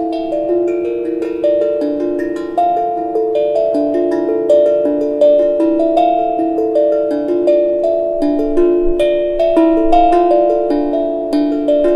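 Hapi steel tongue drum played with mallets: a flowing run of struck notes, each ringing on under the next.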